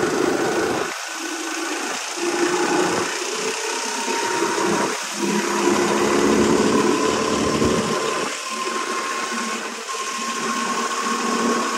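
Go-kart motor running as the kart laps the track. Its note eases off and picks up again several times, and a thin whine slowly rises in pitch.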